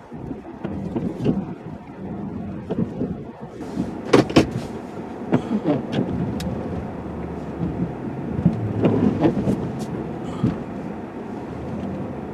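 Snow-plow truck engine running steadily, heard from inside the cab, with scattered sharp clunks and knocks, several close together about four seconds in and more near the end, as the truck works through deep snow and pushes back out of a snowbank.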